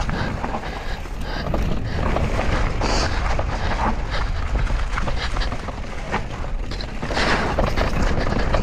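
Mountain bike riding a rough woodland trail: wind rumbles on the microphone, with many quick clicks, knocks and rattles from the bike going over the ground.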